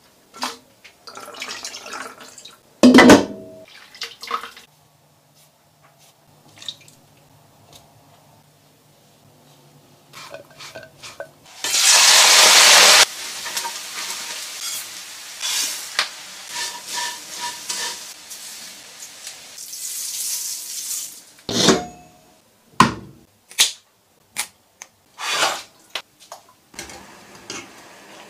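Home kitchen cooking sounds: knocks and clinks of pots, a wok and utensils, and water sloshing. A loud knock comes about three seconds in, and a loud hiss lasts about a second around twelve seconds in.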